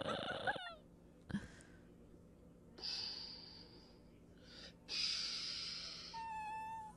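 A loud noisy sound cuts off about half a second in. Then a Shiba Inu, with a fist held at its face, gives two breathy huffs of about a second each, followed by a short high whine near the end.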